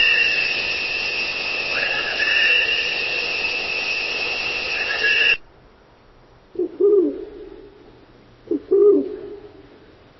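A steady, high-pitched hiss with a whistling tone cuts off abruptly about five seconds in. Then an owl hoots twice, about two seconds apart, each hoot a short note followed by a longer one that rises and falls.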